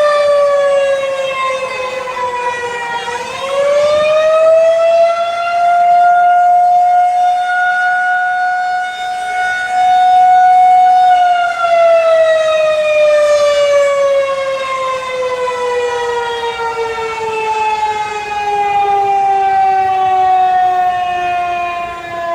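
A Federal 2001-130 tornado siren running on 48 volts DC, sounding one tone with many overtones. Its pitch dips, then winds back up about three seconds in and holds steady for about seven seconds. It then winds down slowly and evenly through the rest. This is the on-and-coast cycling of an attack signal.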